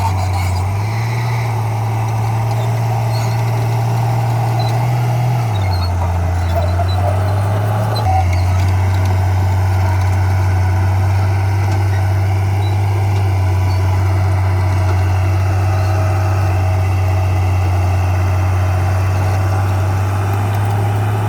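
Heavy diesel engine of earthmoving equipment running continuously at working revs. Its note shifts up about a second in, drops around five and a half seconds, and rises again around eight seconds.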